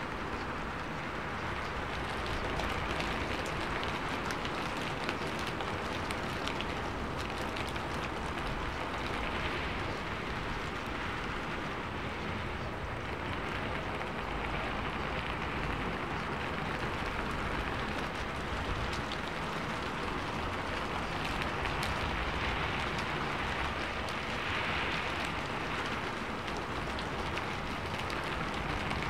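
Steady rain: an even hiss with scattered drop ticks.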